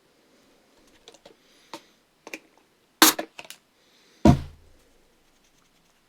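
Small clicks and taps of tools and small mouse parts being handled on a workbench, with two louder knocks about three and four seconds in, the second a dull thud.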